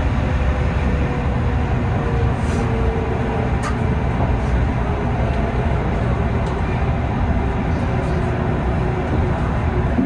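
Train interior noise: a steady rumble of wheels and running gear, with a faint tone sliding slowly down in pitch as the train slows.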